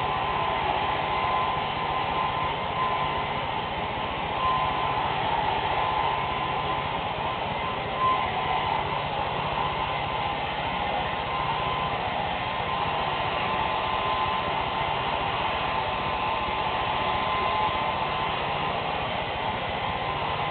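Handheld hair dryer running continuously: a steady rush of air with a constant whine from its motor, the level wavering a little as it is moved about the head.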